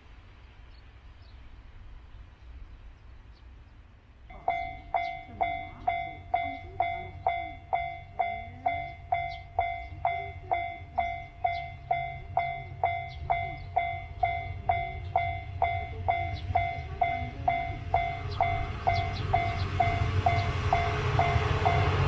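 Japanese level-crossing warning bell ringing, a regular ding about twice a second, starting about four seconds in. An approaching single-car train grows louder under it over the last few seconds.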